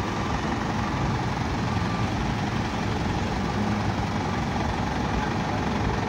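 Tour bus diesel engine idling steadily, a low, even rumble.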